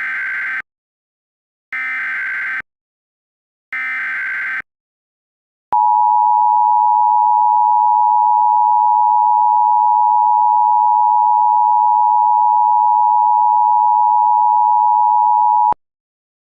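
Emergency Alert System tones for a required monthly test. First come three roughly one-second bursts of SAME digital header data, about two seconds apart. Then comes the steady two-tone attention signal, held for about ten seconds before it cuts off abruptly.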